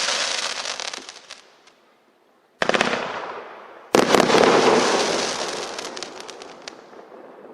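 Fireworks cake firing its finale shots. A crackling burst dies away in the first two seconds, and after a short pause two more shots go off about a second and a half apart. Each is followed by a long spell of dense crackling from the time-rain and strobe stars, which fades near the end.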